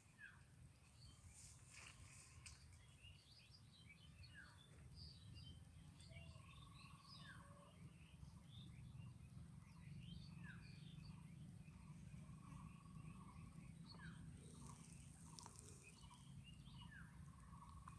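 Faint birdsong: a short falling call repeated about every three seconds over a scatter of small high chirps, with a steady low rumble underneath.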